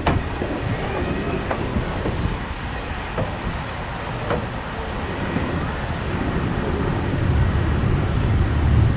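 City traffic noise, with a low engine rumble growing louder over the last couple of seconds as a vehicle draws near.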